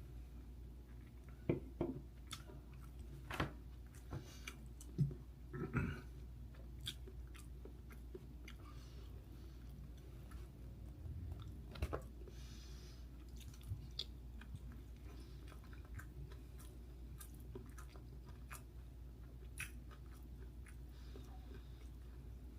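A person chewing and biting into Korean mandu dumplings, with soft wet mouth sounds and a handful of louder bites and smacks, most of them in the first half.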